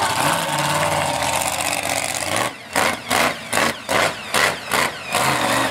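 Monster truck's engine running loud, then revved in a quick series of about seven sharp throttle blips, roughly two and a half a second, in the second half.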